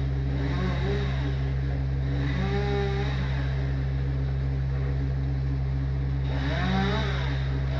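An engine running steadily with a low, even drone, with brief pitched rises and falls over it twice.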